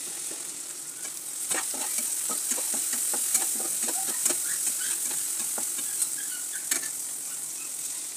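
Chopped onion, tomato and green chilli sizzling in hot oil in a pan. From about a second and a half in, they are stirred, with many short scrapes and clicks of the utensil against the pan over the steady hiss.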